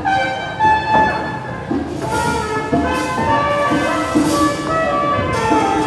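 A live band playing music: held melody notes over a steady accompaniment, with cymbal-like crashes about two, four and five and a half seconds in.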